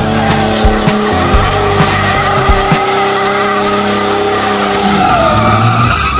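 Jeep Cherokee XJ tires squealing continuously on concrete as it spins donuts, over the engine running hard.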